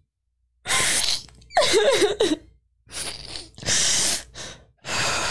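A person crying: several sharp gasping, sniffling breaths with a short whimper among them.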